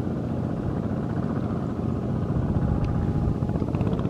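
Tractor's diesel engine running steadily with a fast, even pulse.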